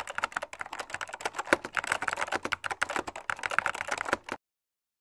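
Computer-keyboard typing sound effect: rapid, irregular key clicks, several a second, that stop abruptly about four and a half seconds in.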